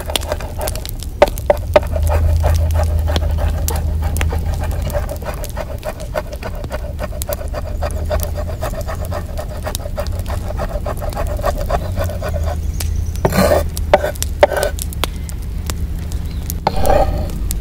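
Kitchen knife mincing garlic on a bamboo cutting board: rapid, uneven taps of the blade on the wood. A steady tone sounds behind the taps and stops about two-thirds of the way in, with a louder knock a little after that.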